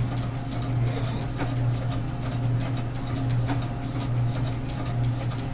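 A small machine running: a steady low hum with fast, light ticking over it.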